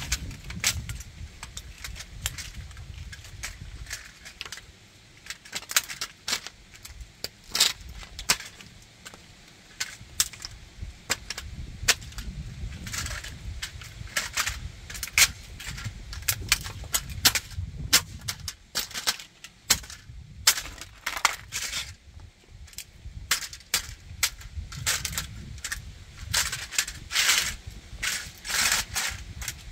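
Die-cast metal and plastic model tanker truck being crushed and ground under flip-flop soles on concrete: irregular sharp cracks, snaps and clinks of breaking parts, several a second at times, with scraping of fragments against the concrete.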